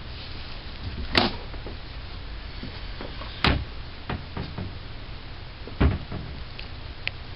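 Three loud dull knocks, a little over two seconds apart, with a few lighter knocks and clicks between them, over a steady low hiss.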